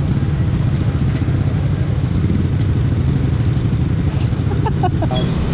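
Yamaha NMAX scooter's single-cylinder engine running steadily while riding, with road and wind noise.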